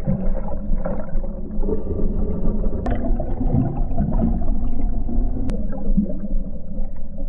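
Muffled underwater sound: a low rumble with gurgling bubbles and wavering tones, and two sharp clicks about three and five and a half seconds in.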